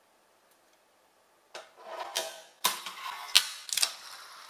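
Fingerboard (miniature finger skateboard) on a tabletop: after about a second and a half of quiet, its wheels roll and rattle, broken by several sharp clacks of the board hitting the table, the loudest a little over halfway through.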